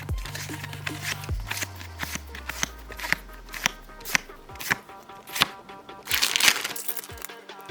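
Pokémon trading cards being handled and flicked through by hand: irregular sharp snaps and slides of card against card, with a short rustle about six seconds in. Background music with steady bass notes plays underneath.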